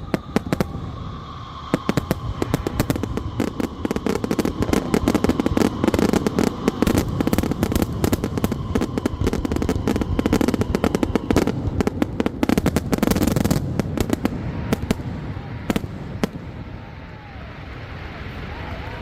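Fireworks going off in rapid crackling bangs and reports, densest through the middle, thinning out over the last few seconds. A faint steady whine runs underneath.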